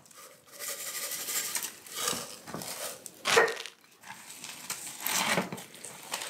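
Raw whole chickens being handled and set into pans: irregular rustling and plastic crinkling with soft knocks, the loudest about three seconds in.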